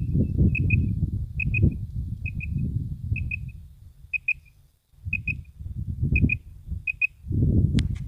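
Quail calls: short high whistled notes in pairs, repeated very regularly about once a second, over heavy wind buffeting the microphone. The wind drops out briefly about halfway through, and a single sharp click comes near the end.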